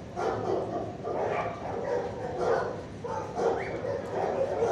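Several dogs barking over one another without a break, in a shelter kennel.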